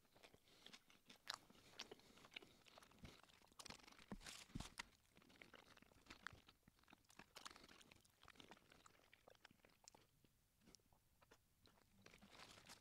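A person chewing a mouthful of cheeseburger: faint, irregular mouth clicks, busiest about four to five seconds in.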